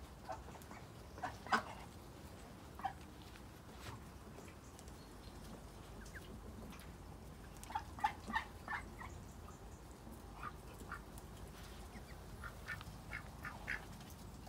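Muscovy ducks giving short, clipped calls in scattered bunches. The loudest come about a second and a half in, and a quick run of several comes around eight seconds in.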